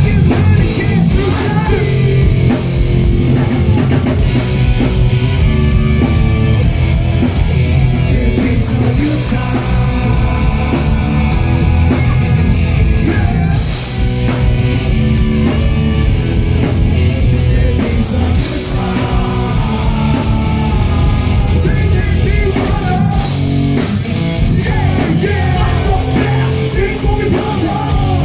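A rock band playing loudly live: electric bass, guitar and drum kit with a shouted lead vocal, in a heavy, punk-edged style.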